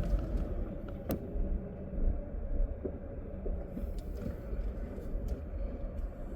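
Car running as it is driven, a steady low rumble with a few small clicks.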